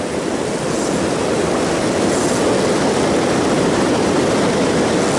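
River water pouring over a low-head dam and churning through the whitewater just below it: a loud, steady rush.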